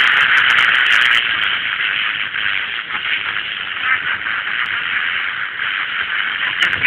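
FM radio receiver tuned to 97.4 MHz giving a steady static hiss: the distant sporadic-E signal has faded into the noise. The hiss slowly gets quieter.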